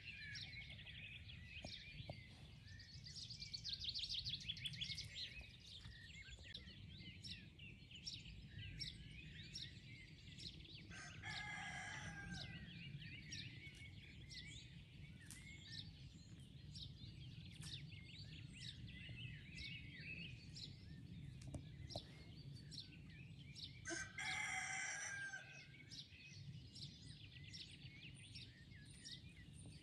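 A rooster crowing twice, each crow about a second and a half long, the first about eleven seconds in and the second near twenty-four seconds, over continual songbird chirping and trilling.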